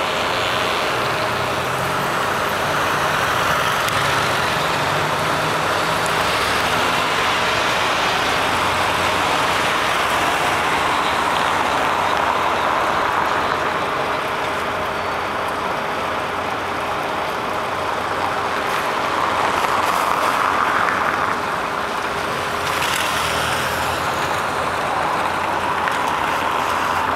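Steady city road traffic: cars and scooters driving past close by, a continuous rush of engines and tyres that swells several times as vehicles go by.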